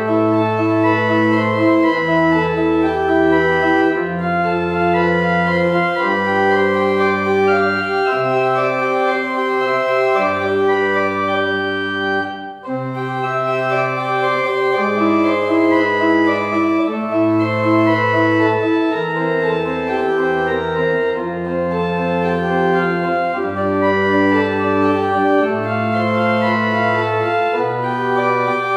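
Church pipe organ playing an instrumental piece: held chords over a bass line that steps from note to note every second or two, with a brief break in the sound about twelve seconds in.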